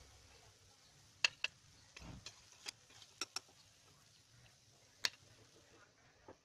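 Perforated steel skimmer tapping against the rim of a kadai while draining fried balls lifted from the hot oil: a few sharp metallic taps, two in quick succession about a second in, two more past three seconds, and a single one about five seconds in.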